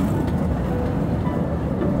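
Open-car cave tourist train rumbling and rattling steadily along its track, with a few brief thin squeaks over the rumble.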